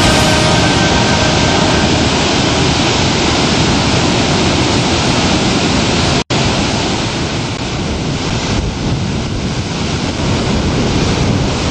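Steady loud roar of a large waterfall, a dense rushing noise. It drops out for an instant about six seconds in, then carries on slightly quieter.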